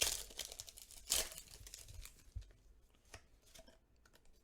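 Foil wrapper of a Pokémon trading card booster pack being torn open and crinkled, loudest in the first second or so with a sharp rip about a second in, then dying down to a few soft clicks and rustles.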